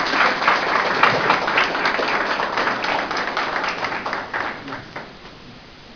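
Audience applauding with many people clapping, dying away about five seconds in.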